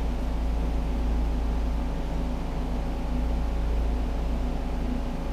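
Steady low mechanical drone with a few faint steady hum tones: the ventilation of an indoor shooting range running.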